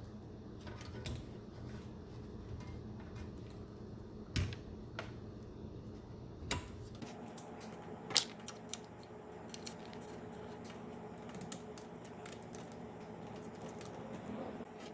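Scattered light clicks and taps of small laptop parts being handled and fitted back into place, with a bent tab being bent back. A low steady hum runs underneath.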